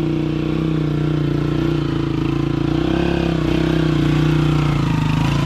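A small engine running steadily at an even speed, loud and close.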